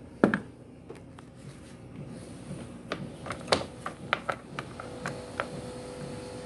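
Scattered sharp clicks and taps of small metal screws and parts being handled and set down on a scooter's floorboard and rubber mat, the loudest a sharp knock near the start. A faint steady hum comes in about five seconds in.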